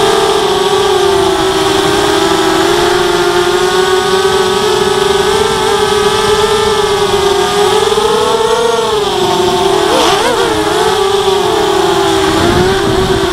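ZMR 250 racing quadcopter's brushless motors (2300kv, 5x3 propellers) whining steadily as it flies, heard from its onboard camera, the pitch rising and falling with the throttle. About ten seconds in the pitch wobbles quickly up and down.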